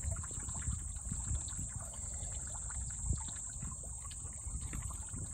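Water sloshing and splashing irregularly as two common snapping turtles wrestle in shallow, duckweed-covered water, with a dull knock about three seconds in. A steady high insect buzz runs underneath.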